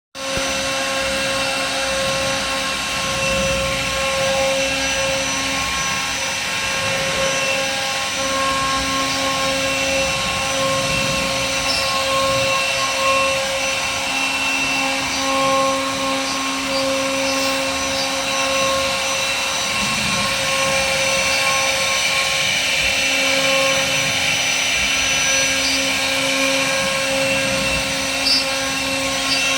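CNC router spindle running with a steady whine while its bit carves into a wooden door panel, with small swells in level as the cut goes on.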